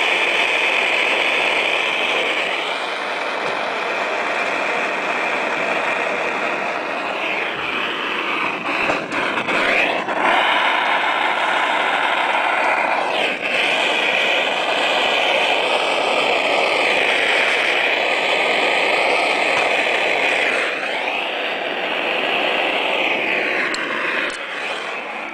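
Gas-heated soldering iron hissing steadily while tin solder is run along a zinc seam. A faint tone in the hiss drifts up and down as the iron is moved.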